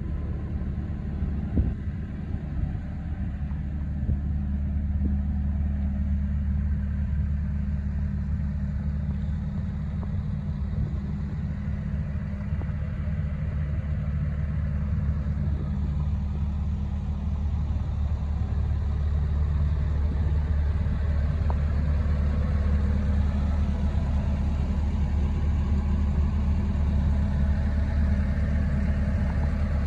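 Diesel engine of a Hyundai HX140LC 14-tonne crawler excavator idling, a steady low hum that grows a little louder about four seconds in.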